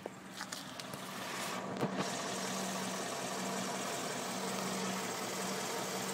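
2011 Ford Mustang GT's 5.0-litre V8 running, with a steady hum and a noise that grows louder over the first two seconds, then holds. The owner says it doesn't sound normal and can't say what it is.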